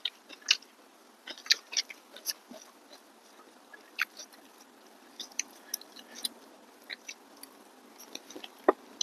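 Close-up eating sounds: a mouthful of rice and fish curry being chewed with wet smacks and clicks, coming irregularly several times a second in places.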